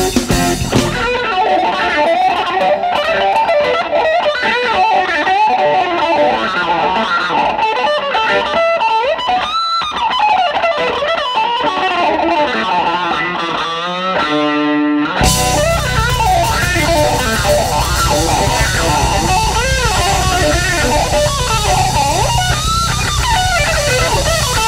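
Electric blues guitar soloing in quick single-note lines. About a second in, the bass and drums drop out, leaving the guitar alone. A fast run leads the full band back in about fifteen seconds in.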